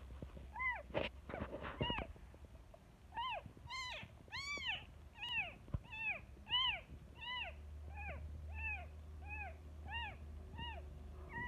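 Newborn kitten mewing over and over, about fifteen short high-pitched cries, each rising then falling in pitch, coming every half second or so: distress calls of a kitten calling for help without its mother.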